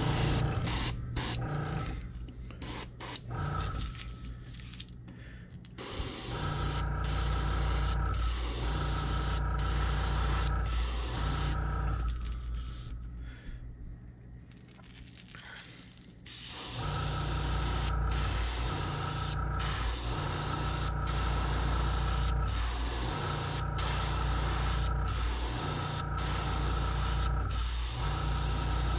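Airbrush hissing as it sprays paint in repeated spurts over the steady hum of its air compressor. The hum drops out twice for a few seconds before starting up again.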